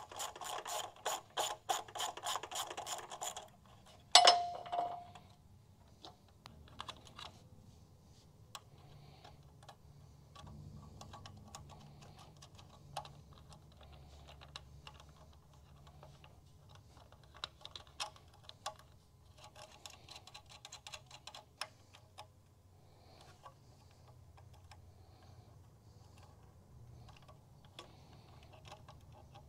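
A socket ratchet clicking quickly for a few seconds as it loosens nuts on a trailer junction box's terminal studs. Then comes one sharp metallic clink with a short ring, followed by scattered small clicks of nuts and wire eyelets being handled on the studs.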